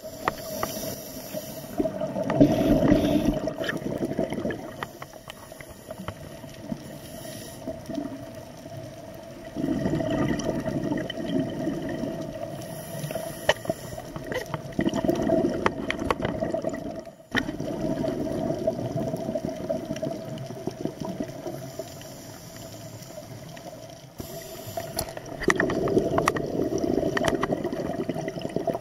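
Underwater sound of a scuba diver breathing through a regulator: bubbles gurgle in bursts of two to three seconds at each exhale, recurring every several seconds, over a steady hum with scattered sharp clicks.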